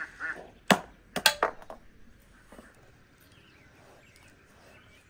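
Ducks quacking briefly at the start, then a few sharp knocks as a large pumpkin is handled on a metal tray, one and then a quick cluster of three about a second in. After that there is only faint handling sound.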